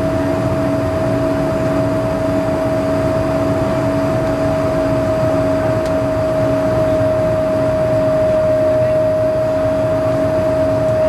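Cabin noise of a BAe Avro RJ100 on approach, with its turbofan engines running at a steady pitch: a constant whine over a broad rumble.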